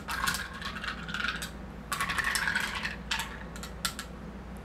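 A metal bar spoon stirring ice in tall glasses of whisky and ginger ale, the spoon and ice clinking against the glass in short spells, with a few single sharp clinks near the end.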